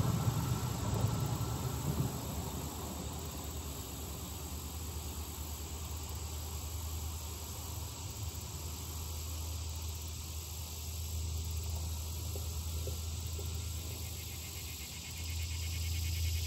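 Steady high-pitched chorus of insects, which the listeners take for crickets rather than cicadas. A low rumble fades over the first couple of seconds, leaving a steady low hum underneath.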